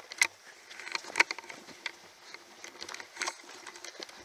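Footsteps crunching on a stony, gravelly path: irregular crunches, a few of them louder.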